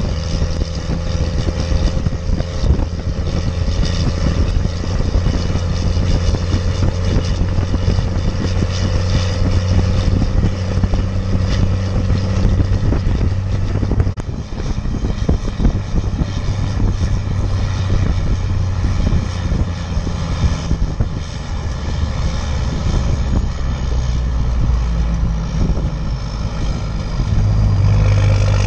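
12-valve Cummins 5.9 L inline-six turbodiesel running steadily under load while pulling a heavy trailer, its deep drone coming through a 5-inch exhaust. The note dips briefly and changes about halfway through, and shifts again near the end.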